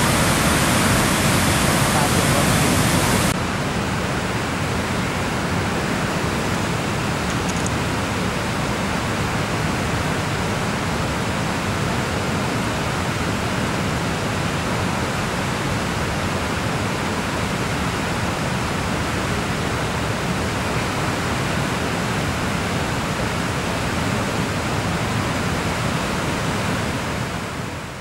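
A large waterfall and rapids in flood, swollen muddy water pouring over the falls with a steady, even rushing. A little over three seconds in, the rush becomes slightly quieter and duller. It dips near the end.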